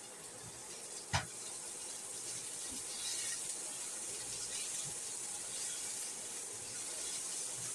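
Food sizzling in a stainless steel frying pan as it is stirred with a silicone spatula, a steady hiss that grows slightly louder. A single knock about a second in.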